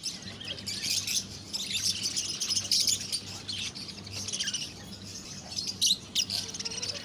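Many small caged birds chirping at once in a dense, continuous twittering, with a low steady hum underneath.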